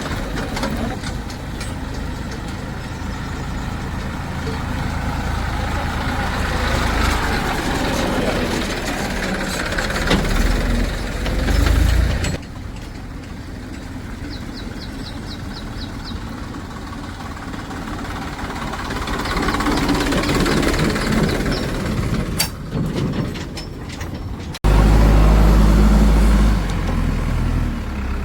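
Heavy diesel engines of a backhoe loader and tractors running at work. The sound changes abruptly twice. The loudest part is a deep low drone of about two seconds near the end.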